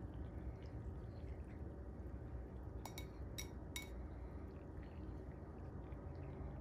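Shredded mozzarella sprinkled by hand over pasta in a glass baking dish: quiet, over a steady low hum, with a few light clicks about three seconds in.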